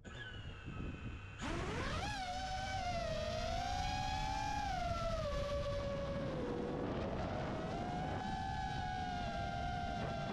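FPV quadcopter's brushless motors and propellers whining, first a quieter steady whine, then throttled up sharply about a second and a half in. The whine rises in pitch and then wavers up and down with the throttle over a rush of prop wash.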